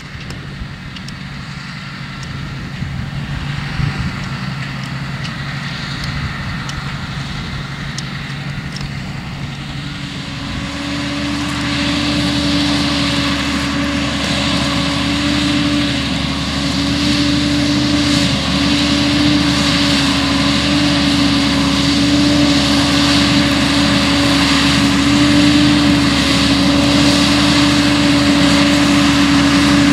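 Valtra T214 tractor's six-cylinder diesel engine running under load as it pulls a mole drainage plough through the soil. About a third of the way in the sound changes abruptly to a steadier, higher engine drone that grows gradually louder as the tractor comes closer.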